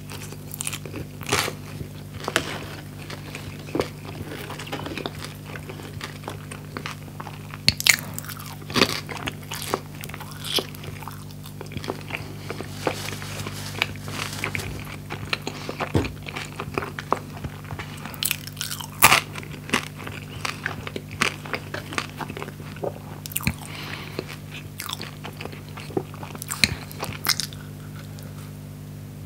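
Close-miked ASMR eating: a person chewing a pita sandwich filled with fried chicken and fries, with wet mouth clicks and crisp crunches scattered throughout. The loudest crunches come about 8 and 19 seconds in, and a fresh bite comes near the end.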